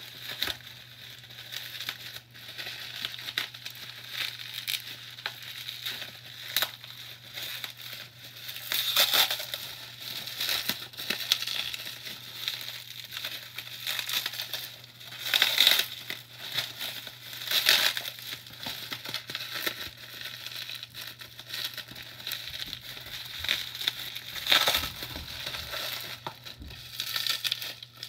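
Packaging being handled, most likely plastic wrap: irregular crinkling and crackling with louder rustles every few seconds. A steady low hum runs underneath.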